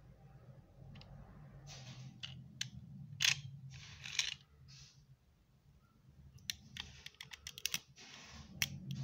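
Plastic Lego Technic parts clicking, scraping and rattling in the hands as a grey beam is pushed into a Lego magazine and the magazine is fitted to the gun. There are scattered sharp clicks, with a quick run of small clicks about seven seconds in.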